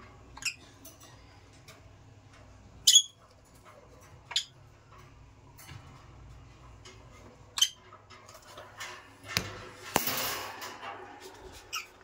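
Masked lovebirds giving five or six short, high-pitched chirps a second or more apart, the loudest about three seconds in. About ten seconds in there is a second of rustling.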